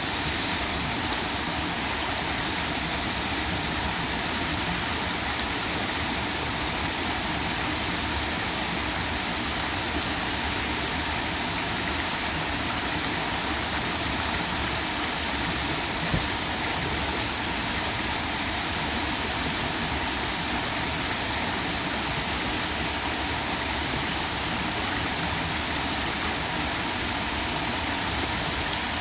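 Small woodland waterfall pouring steadily over a rock ledge into a shallow pool, with the stream rushing on over stones below it.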